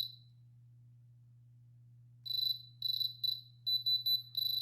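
Diamond tester pen beeping as its probe touches the bracelet's stones: a high electronic beep that starts about two seconds in, comes as a few short beeps, then a quick stutter, then one longer beep near the end. The beep is the tester's signal that it reads the stone as diamond.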